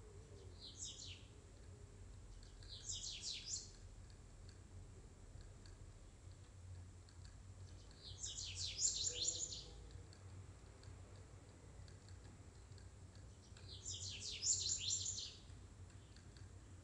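A small bird chirping in four short bursts of rapid, high twittering notes, a few seconds apart, over a faint steady hum.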